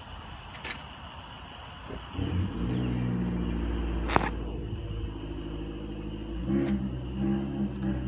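An engine comes in suddenly about two seconds in and runs steadily after that. There is a sharp knock about four seconds in and lighter ones before and after.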